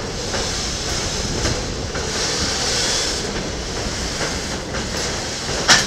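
Freight wagons rolling past on the rails: a steady rumble of wheels with faint clacks over the rail joints and a high hiss swelling in the middle. One sharp, loud clack comes near the end.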